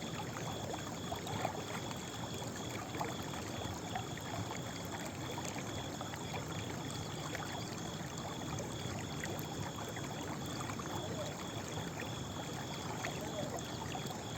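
Running water from a stream, a steady babbling with small scattered drips and ticks, and a steady high trill with regular short breaks running over it.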